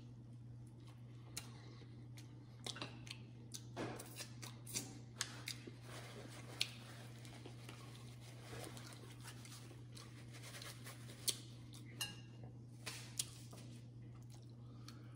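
Close-miked eating of a seafood boil: scattered wet smacks and small sharp clicks from chewing and the mouth, over a low steady hum.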